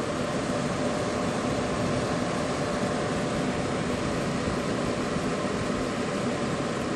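Several Cooler Master JetFlo 120 mm case fans running at full speed, about 2000 rpm, with the desk's glass top off: a steady rush of air with a faint even hum underneath.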